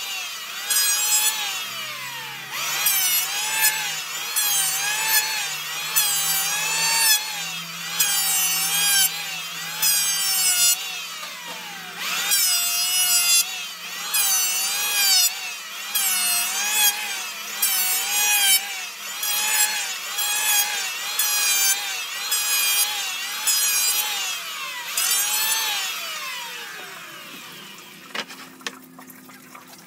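Makita DHS900Z 36 V brushless cordless circular saw cutting wood. Its whine dips in pitch and recovers about once a second as the work is fed through in repeated passes. Near the end the saw winds down with a falling pitch and the sound drops away.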